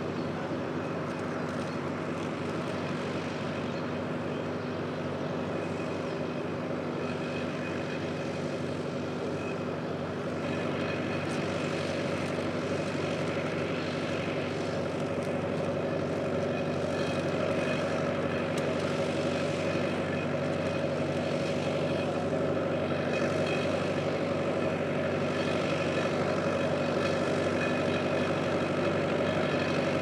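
Fordson Major tractor engine running steadily under load as it pulls a plough, growing gradually louder as the tractor comes closer.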